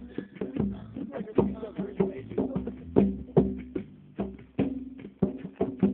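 Bongos played by hand in a steady rhythm: sharp slaps with a short ringing tone, two or three strong hits a second with softer taps between.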